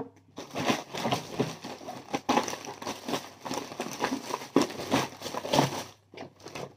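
Plastic poly mailer bag crinkling and rustling as hands rummage inside it: a continuous run of small crackles that stops just before six seconds in.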